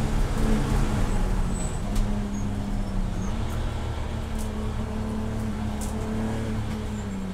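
Race car engine running at a fairly steady speed, its pitch dipping slightly a couple of times and then holding, with a few faint clicks.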